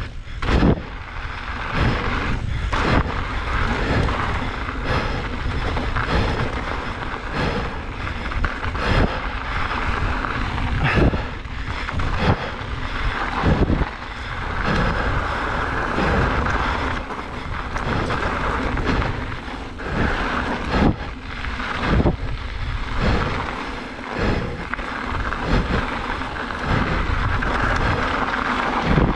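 Mountain bike riding down a gravel trail: wind buffeting the microphone and tyres rolling on dirt and gravel, with frequent irregular knocks and rattles as the bike jolts over bumps.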